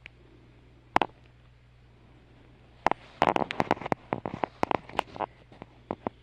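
Sharp clicks and taps, most likely handling and tapping of a smart alarm clock. One stands alone about a second in, then comes a quick, irregular run of them lasting about two seconds, then a few stray taps.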